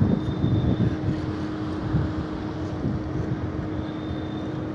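A steady, distant engine or machine hum, with wind rumbling on the microphone.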